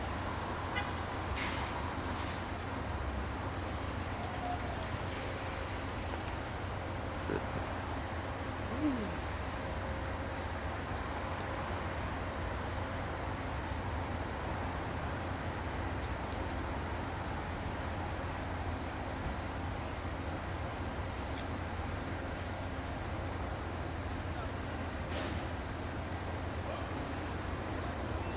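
Crickets trilling steadily at night, with a second, slower chirp repeating at an even pace, over a low steady rumble.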